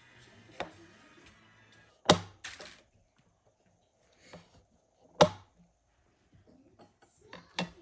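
A few separate sharp knocks of a knife chopping on a cutting board, the loudest about two seconds in and about five seconds in, with two quicker ones near the end; faint background music fades out shortly before the first knock.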